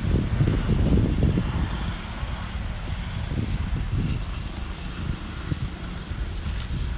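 Wind noise on the microphone: an uneven low rumble that swells and fades.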